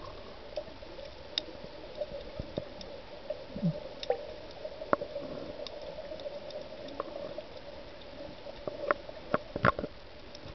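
Underwater sound picked up by a camera in a waterproof housing: a steady faint hum under a light hiss, with scattered sharp clicks and pops. A cluster of louder knocks comes near the end.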